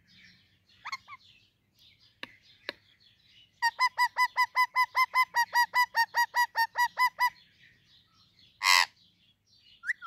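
Indian ringneck parrot calling: a short call about a second in, then a long run of about twenty identical sharp notes at roughly five a second, and a loud harsh screech near the end.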